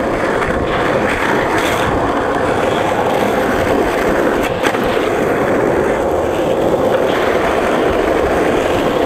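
Skateboard wheels rolling on asphalt: a steady, unbroken rolling noise.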